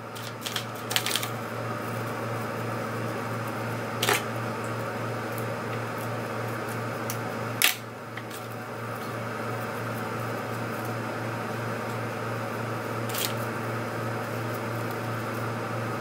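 Steady low hum and room noise, broken by a few short clicks and rustles as hair is wound onto Velcro hair rollers: a cluster near the start, then single clicks about 4, 7.5 and 13 seconds in.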